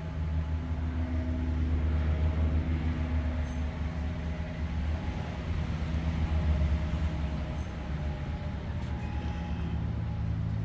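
Machinery running with a steady low hum, its pitch shifting slightly near the end.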